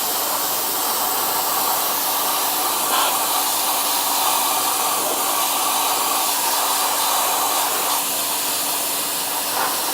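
Ryobi 2000-PSI 1.2-GPM electric pressure washer spraying a water jet against a dirt bike's muddy skid plate: a steady hiss of spray with a low steady hum underneath.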